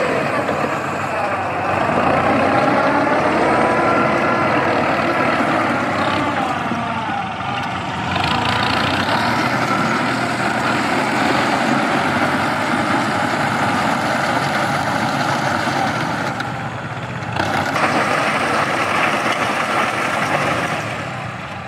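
Turbocharged Kubota L5018VN tractor's diesel engine running steadily under load as it pulls a round baler through straw, its pitch wavering over the first few seconds. The turbocharger is an aftermarket fit.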